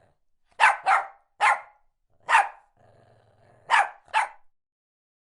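A dog barking six times, short single barks with two quick pairs, stopping about four and a half seconds in.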